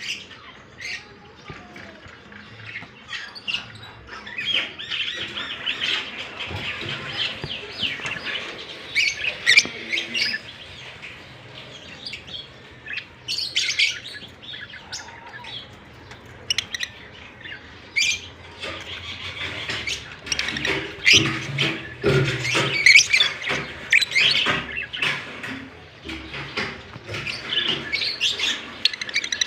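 Pet lovebirds chirping and chattering in quick, high, sharp chirps that come in busy runs, loudest about a quarter of the way in and again a little past the middle.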